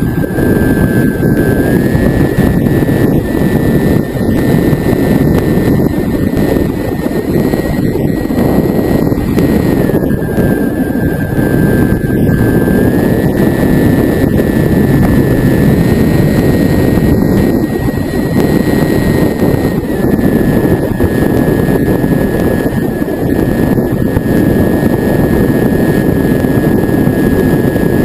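Model airplane's motor and propeller heard from the onboard FPV camera in flight: a steady high whine that steps up and down in pitch a few times, over a dense rushing noise of the propeller and airflow.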